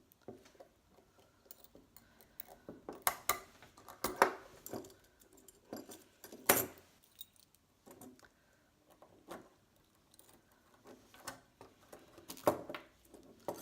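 Small metal clicks and clinks of steel handcuffs and a sterling silver earring shim being handled, coming irregularly with a sharper click about six seconds in.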